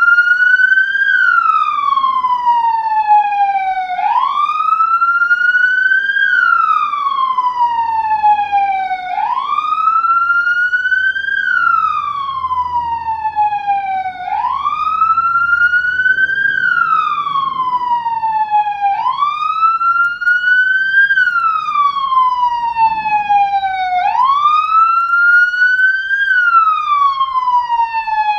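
Police siren on its wail setting: the pitch climbs quickly, then slides slowly down, the cycle repeating about every five seconds.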